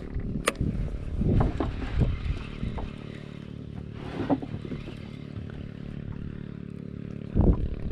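A small engine running steadily, with a sharp click about half a second in and scattered scrapes and knocks over it, the loudest a low thump near the end.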